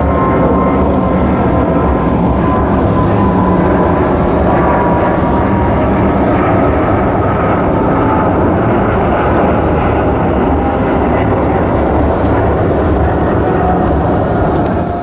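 Boeing 777 twin turbofans roaring on climb-out overhead, a steady heavy jet roar with a faint whine that slowly drops in pitch as the aircraft moves away. The sound cuts off abruptly at the end.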